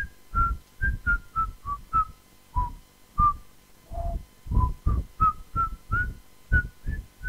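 A person whistling a short tune, about twenty separate notes that step up and down with a small breath puff on the microphone at the start of each.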